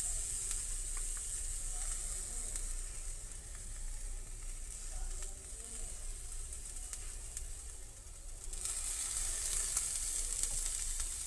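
Moong dal pizza base frying in ghee in a kadai over a gas flame: a steady sizzle with light crackles, growing louder about eight and a half seconds in.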